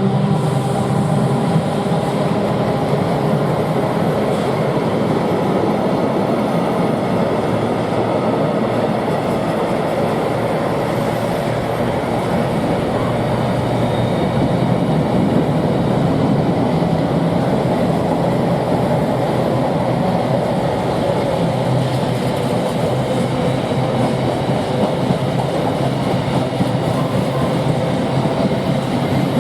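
Freight train wagons rolling steadily past on the rails, a continuous loud rumble of steel wheels on track, just after the diesel locomotive has gone by.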